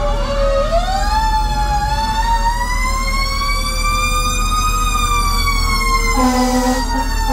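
Fire truck's siren winding up and then slowly winding down, with a second siren falling in pitch beneath it. Near the end, short blasts of the truck's air horn cut in.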